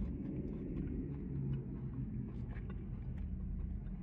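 Steady low rumble of a car idling, heard from inside the cabin, with faint scattered clicks.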